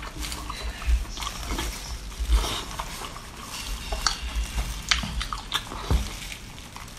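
Close-up wet mouth sounds of a person eating octopus in chili oil: irregular smacking, sucking and chewing clicks.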